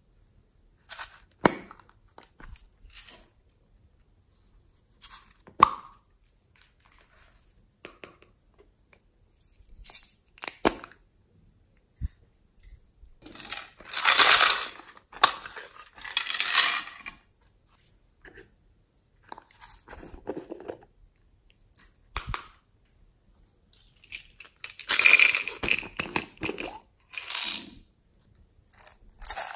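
Plastic toy containers being handled and opened, with scattered small plastic clicks and knocks. There are two longer stretches of rattling and scraping, about halfway through and near the end, as beads and glitter are tipped out of the containers onto the slime.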